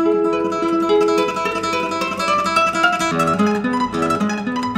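Background music: acoustic guitar playing a melody of quickly plucked notes.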